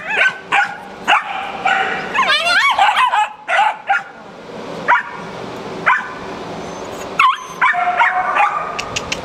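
Several kenneled dogs barking at intervals, with high yips and drawn-out whining calls in between.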